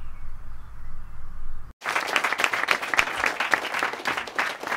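A low rumble cuts off abruptly, and after a moment an audience breaks into applause, many hands clapping in a dense patter.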